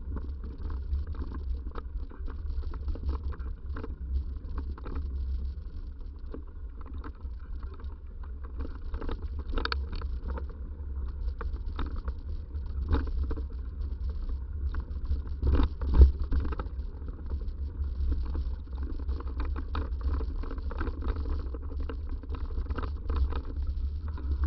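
Bicycle ridden over a bumpy trail: a steady rumble of wind on the microphone, with frequent rattles and knocks from the bike as it hits bumps. The loudest knock comes about 16 seconds in.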